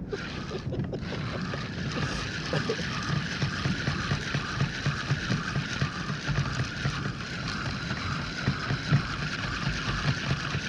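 Spinning fishing reel being cranked steadily, a rhythmic whir of about two and a half handle turns a second, over a steady hiss of wind and water.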